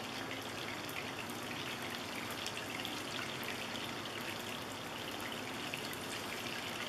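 Hot oil sizzling and crackling steadily in a cast iron skillet as cornstarch-battered squirrel pieces flash fry.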